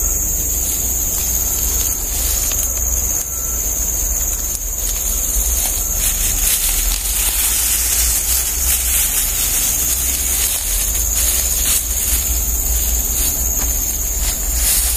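Steady high-pitched drone of tropical forest insects over a low rumble of wind and handling on a phone microphone, with scattered rustles of fern fronds and undergrowth as people push through and pick.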